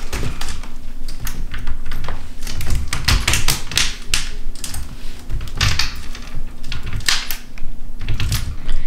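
Irregular clicks and knocks as the two halves of a woven wicker egg swing chair's frame are handled and fitted together.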